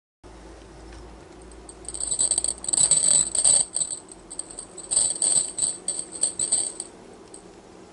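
Metallic jingling, shaken in quick irregular bursts, starting about two seconds in, with a pause of about a second before the second bursts, and stopping near the end.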